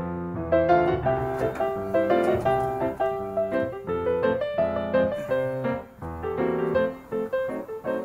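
Background piano music: a lively melody of quick, separate notes.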